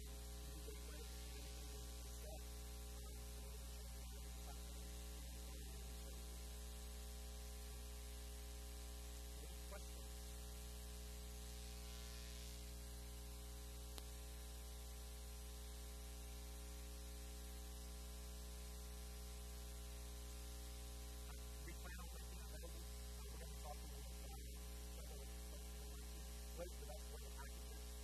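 Steady electrical mains hum with a layer of hiss.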